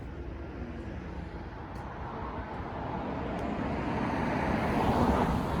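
Outdoor traffic noise, a road vehicle passing, growing gradually louder toward the end.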